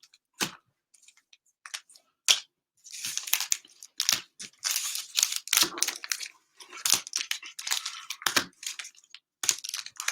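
Cellophane wrapping on a box of trading-card packs being torn open and handled: a few sharp clicks and rustles, then dense crinkling and tearing from about three seconds in.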